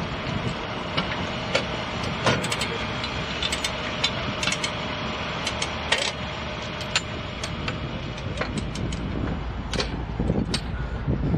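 Steel track tools clanking and striking against rail, tie plates and spikes in a run of sharp, irregular metallic knocks during railroad tie replacement, over a steady low rumble.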